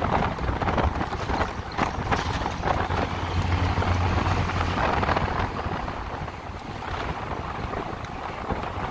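Wind buffeting the microphone on a moving motorcycle, a gusty rushing rumble. A low hum swells in the middle and fades.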